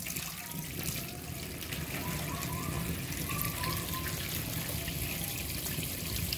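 Water trickling steadily from a tap into a stainless-steel kitchen sink.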